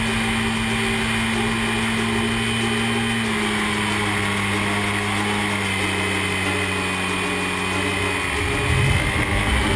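RC model airplane's motor and propeller running steadily in flight, heard up close from the nose with air rushing past; the pitch sags a little midway and picks up again near the end.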